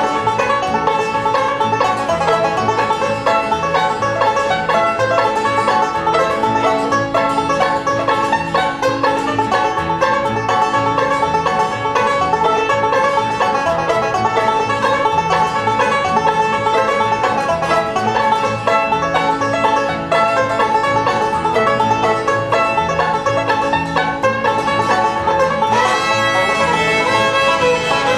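A bluegrass band playing an instrumental break, with a picked banjo leading over strummed guitar and a walking bass. A fiddle comes in near the end.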